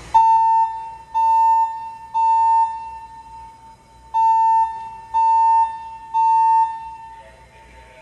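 Wheelock ET70WP fire alarm speaker strobe sounding the temporal-three evacuation tone: steady beeps of about half a second each, in two groups of three with a pause between the groups. This is the standard signal to evacuate the building.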